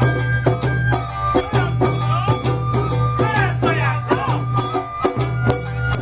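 Awa odori festival music from a live band: drums and a small gong keep a steady, driving beat, with a high flute melody held over it.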